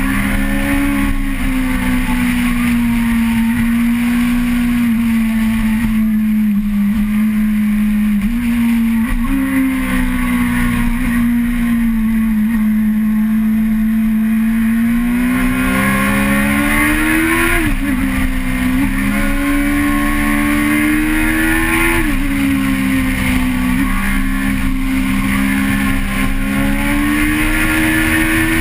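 Vehicle engine heard from on board under way, its pitch slowly falling and climbing with speed and dropping suddenly a few times, as at gear changes.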